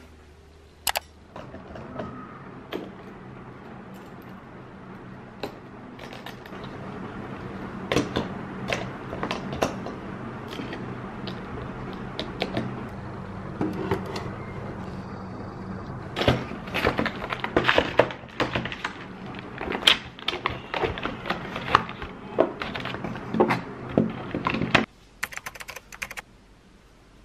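Handling noise from unpacking and arranging small items: plastic wrapping rustling, with many clicks, taps and knocks as things are picked up and set down, over a steady low hum that cuts off suddenly near the end.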